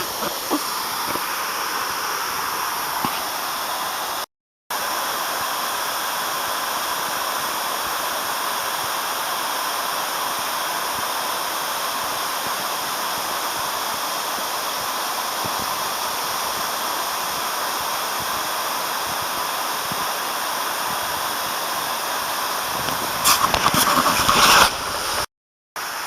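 Waterfall rushing as a steady, even roar of falling water. It cuts out briefly twice, and a burst of louder crackling noise comes near the end.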